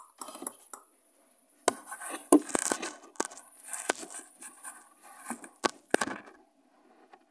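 Phone being handled and set in place: a run of sharp knocks and clicks with fingers rubbing and scraping over the phone's body right against its microphone, falling quiet about a second before the end.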